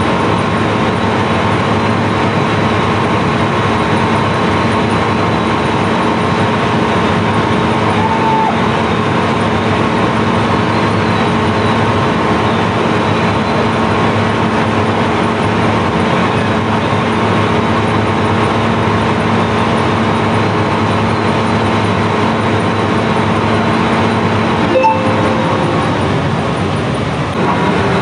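Sand barge's unloading machinery running steadily: a constant mechanical hum with a broad rushing noise over it. A single sharp knock comes near the end.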